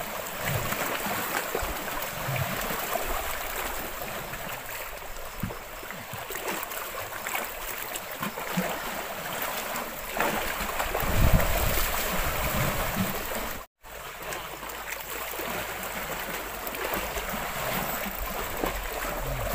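Lake water lapping and splashing against shoreline rocks, a steady watery wash, with a louder low rumble for a couple of seconds about ten seconds in. The sound drops out for an instant about fourteen seconds in.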